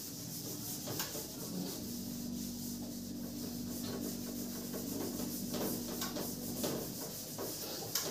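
Writing on a board: a run of rubbing, scratching strokes, with a faint low steady hum for a few seconds in the middle.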